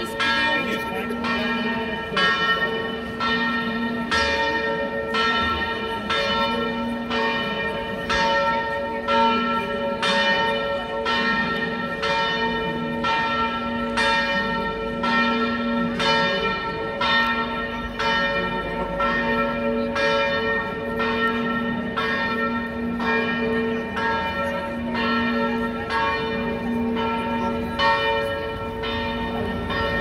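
Several church bells swinging in a full peal, their strokes recurring about once a second and overlapping as each one rings on.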